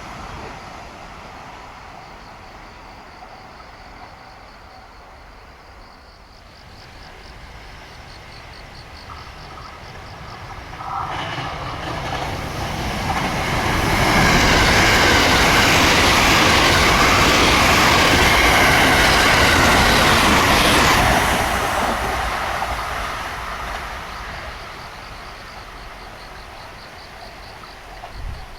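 A train approaching, passing close by on the rails and fading away, loudest about halfway through. A level-crossing warning bell rings faintly and regularly before and after the pass.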